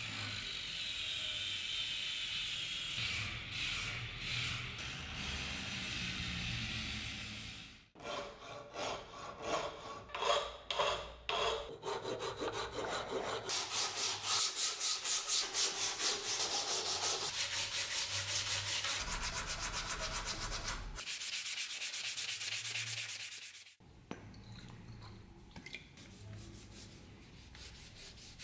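An angle grinder with a sanding disc sands a wooden machete handle with a steady hiss. After about eight seconds comes hand sanding: an abrasive strip is pulled quickly back and forth around the handle, in several fast, even strokes a second. The last few seconds are a quieter, softer rubbing of the handle.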